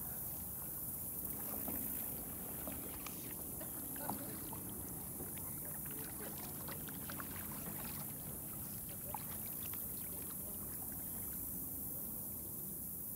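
Kayak paddles dipping into calm water: scattered small drips and splashes over a steady high hiss.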